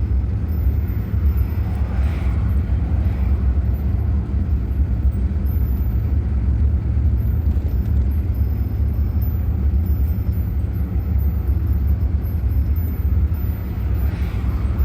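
Steady low rumble of a van's engine and road noise, heard from inside the cabin while driving.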